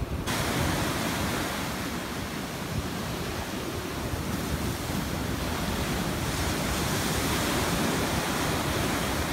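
Ocean surf breaking and washing up a sandy beach: a steady rush of foaming water that gently swells and ebbs.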